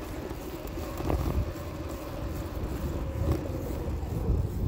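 Riding noise on a bicycle heard through a handlebar-mounted phone: wind buffeting the microphone over a low tyre rumble on pavement. There are a couple of brief knocks, about a second in and again past three seconds.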